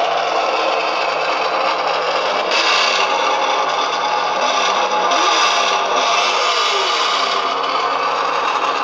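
Engine sound from the RC truck's onboard audio unit, playing continuously with a rough, distorted tone. Its pitch glides up and back down a little past halfway through.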